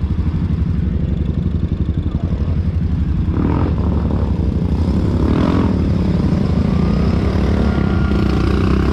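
Honda Rancher 420 ATV's single-cylinder engine idling steadily, with the even low pulsing of its firing.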